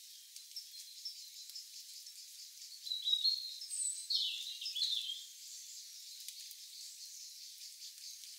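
Birds chirping in short bursts for about two seconds around the middle, over a faint steady high insect drone and scattered small ticks.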